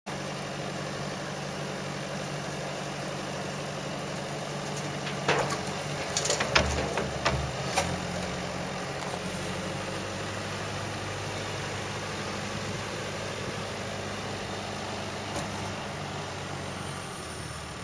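JCB telehandler's diesel engine running steadily as its bucket tips earth into a trailer. A cluster of knocks and thuds between about five and eight seconds in as soil and stones drop into the trailer body.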